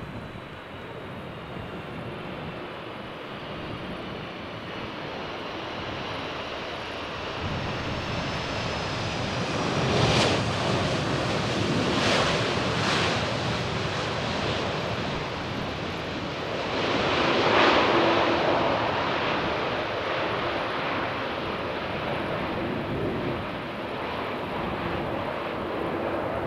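Jet airliner landing past: a faint engine whine falling in pitch early on gives way to rushing jet-engine noise that grows louder. The noise peaks about ten seconds in and again near eighteen seconds, with a steady low hum in the later part.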